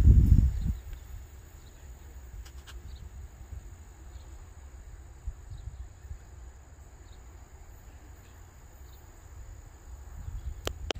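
A steady high insect chorus, crickets or katydids trilling in summer grass. Wind rumbles low on the microphone throughout, with a strong gust at the very start.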